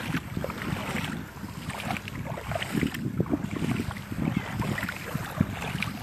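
Wind buffeting the microphone in uneven gusts, over small waves lapping at the water's edge.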